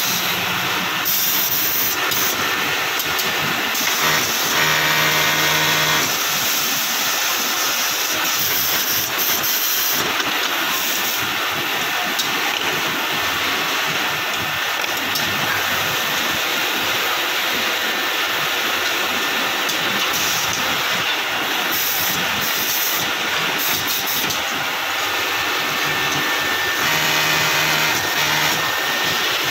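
Steady, loud hissing background noise, with a short steady machine hum about five seconds in and again near the end.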